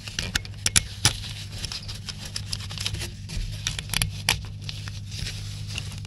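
Gloved hands refitting the ground cable's terminal onto an ATV starter motor: a string of irregular small metal clicks and taps as the lug and bolt are handled, with rustling of the gloves against the parts.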